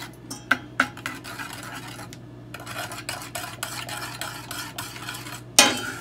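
Metal spoon stirring chocolate glaze in a stainless steel saucepan, scraping and clinking against the pot. Two sharp clinks come about half a second in, and a louder knock near the end.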